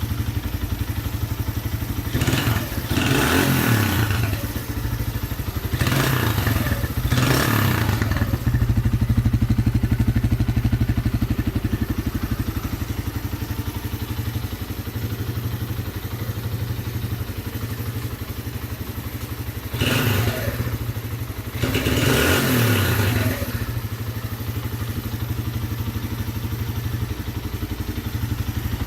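GP125 motorcycle fitted with an aftermarket megaphone exhaust, idling steadily, with the throttle blipped in short revs several times: twice in quick succession, twice more a few seconds later, and twice near the end.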